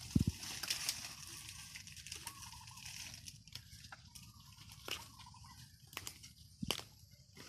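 Dry bamboo leaves, straw and brush rustling and crackling as they are handled and brushed through a bamboo thicket. There is a heavy thump just after the start and a few sharp snaps later. A bird calls faintly a few times in the background.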